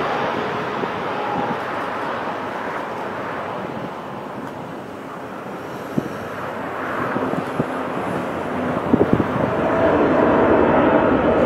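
Boeing 777 jet engines on landing: steady jet noise as the airliner touches down and rolls along the runway, dipping a little in the middle, with a few short sharp knocks from about six to nine seconds in. Near the end a steady engine whine grows louder as another 777 comes in low.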